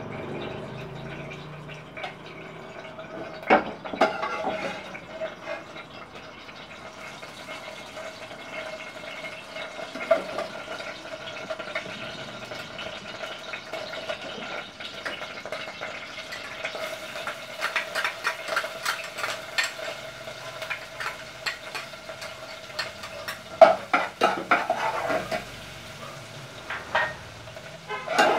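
Metal utensils clinking and scraping against a saucepan and a stainless steel bowl, with a few sharper knocks, the loudest near the end. Under them, pork cubes frying in oil crackle, with clicks coming thicker in the second half.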